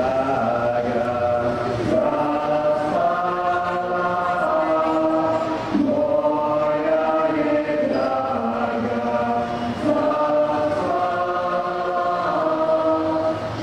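A group of dancers singing a Croatian folk song in chorus, in long held notes. The phrases run about four seconds each with short breaths between.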